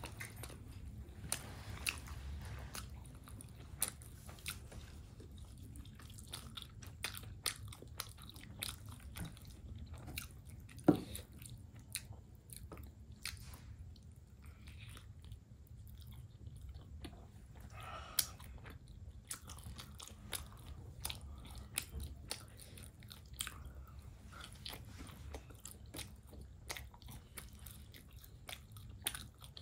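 Close-up chewing of steamed chicken momos: wet mouth clicks and smacks over steady mastication, with one louder click about eleven seconds in.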